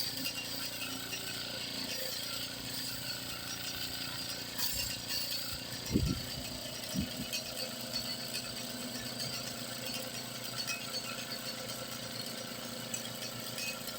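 Small electric air compressor for an air-horn kit running with a steady mechanical hum, with two short low thumps about six and seven seconds in.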